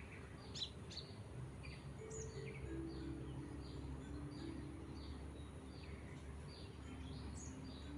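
Oriental magpie-robin calling: a short, high, falling note repeated over and over, a little more than once a second, over a low steady hum.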